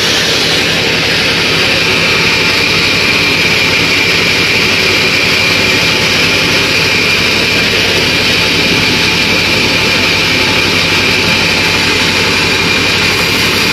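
Portable sawmill running steadily: an engine's fast low drone under a constant high whine that holds at one pitch.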